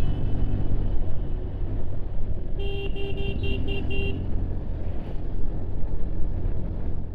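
Motorcycle engine running steadily at riding speed, with road noise. About two and a half seconds in, a vehicle horn gives about six quick short toots.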